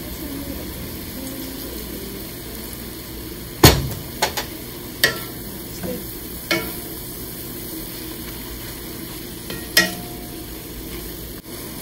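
Mushrooms and green vegetables sizzling in a stainless steel pan while a wooden spatula stirs them, knocking against the pan about six times, loudest a little under four seconds in.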